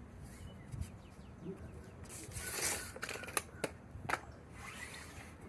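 Scattered light knocks and clicks with a brief rubbing scrape about two and a half seconds in: handling noise from moving wood and tools.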